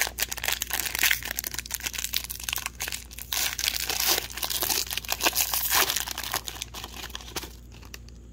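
Wrapper of a hockey trading card pack being torn open and crinkled by hand, a dense run of crackles that stops about seven and a half seconds in.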